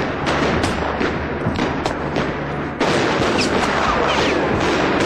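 Battle gunfire: rifle and pistol shots cracking in quick, irregular succession. About three seconds in, the din steps up louder and denser.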